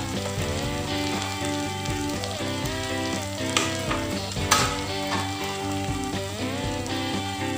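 Corn kernels and pork sizzling as they stir-fry in a frying pan, turned with a spatula, with two sharp knocks near the middle. Background music plays over it.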